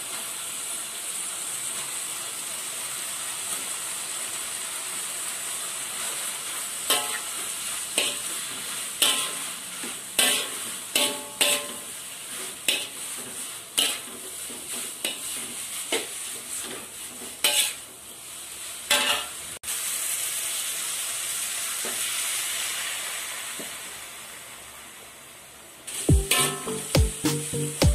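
Rice vermicelli sizzling in a hot wok while a spatula scrapes and turns it, about one stroke a second in the middle part. Near the end the strokes come faster and louder.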